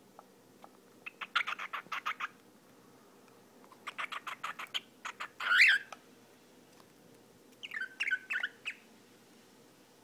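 Cockatiel chirping in three bursts of rapid short notes, the loudest a longer rising-and-falling call about five and a half seconds in.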